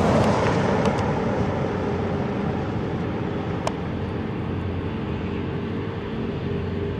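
A pickup truck passing on a gravel road: tyre and gravel noise is loudest at the start, then fades as the truck drives away. A steady low engine hum runs underneath, with one sharp click a little over halfway through.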